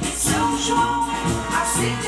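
Accordion-led festa junina music with band and chorus, played from a 1970s vinyl LP on a turntable, with a steady rhythm and shaker percussion.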